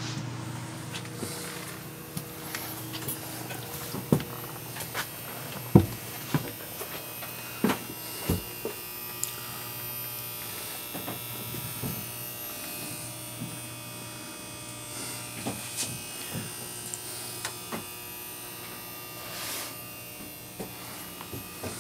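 Steady buzzing hum of electrical or mechanical equipment in a boat's engine room, with scattered knocks and thumps from footsteps and handling.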